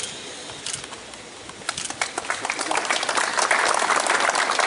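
Audience applause: a few scattered claps at first, then many people break into clapping about two seconds in, growing louder and dense.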